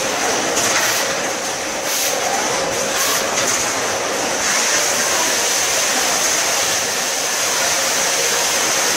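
Automatic case packer machine running, a steady mechanical noise with a constant high whine and a low hum, broken by three short hisses in the first three seconds.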